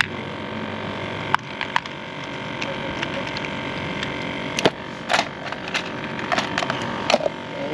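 A handful of short, sharp clicks and knocks, irregularly spaced, over a steady background of noise and faint hum.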